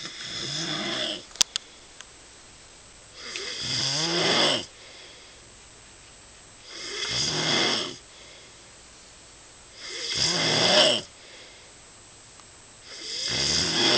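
Steady rhythmic snoring: four long snores, one about every three seconds, each growing louder before it stops short, after the tail of another snore at the start. A sharp click comes about one and a half seconds in.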